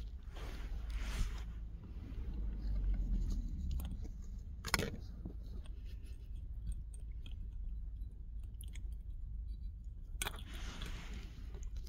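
A Maltipoo chewing and licking at something, heard as faint scattered clicks and smacks with one sharper click about five seconds in.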